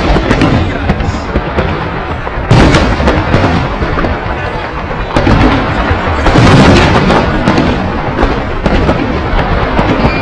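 A large fireworks display going off non-stop from about half a kilometre away, with booms and crackling bursts following one another and swelling louder about two and a half seconds in and again around six seconds in.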